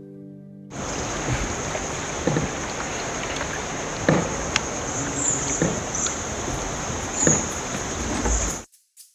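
Paddle strokes of a boat swishing through water, one stroke every second or two, over a steady high-pitched hiss.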